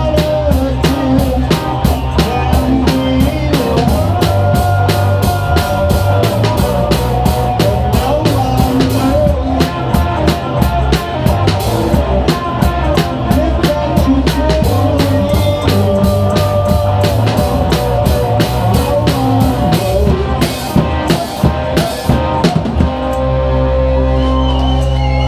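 Live rock band playing, with the drum kit loud and close: a driving beat on drums and cymbals under melodic lines. About 23 seconds in the drumming stops and a chord is held to the end.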